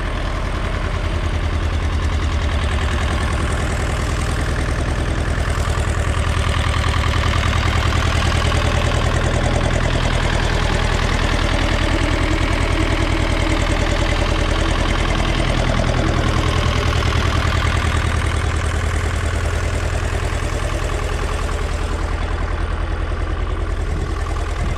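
Władimirec T-25 tractor's two-cylinder air-cooled diesel idling steadily, just started in the frost.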